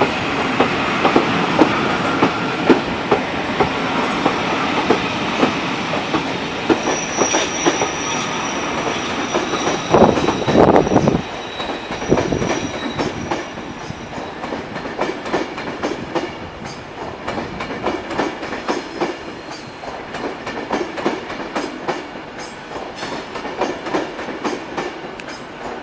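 Passenger train behind steam locomotive 60163 Tornado rolling into a platform, its wheels clicking over the rail joints. A thin high squeal runs from about seven to thirteen seconds in, and there is a loud rushing burst about ten seconds in. After that the clicking carries on more quietly as the train slows.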